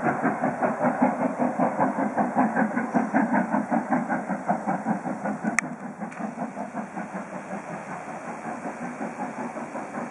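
Steam locomotive working a train, its exhaust beating rapidly at about five beats a second. A sharp click comes about halfway through, after which the beats carry on fainter.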